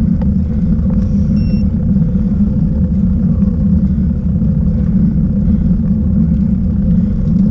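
Steady low rumble of wind and road vibration on the microphone of a camera mounted on a road bike being ridden on asphalt, with a faint steady hum underneath. A brief faint high beep sounds about a second and a half in.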